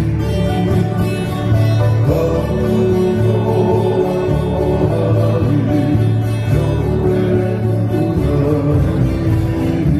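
Live Hawaiian music from an acoustic trio: men's voices singing over a strummed acoustic guitar, ukulele and a steady electric bass line.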